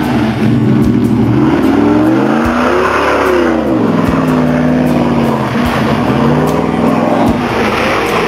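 Dodge Ram pickup's engine revving up and down several times as the truck churns through deep mud with its wheels spinning.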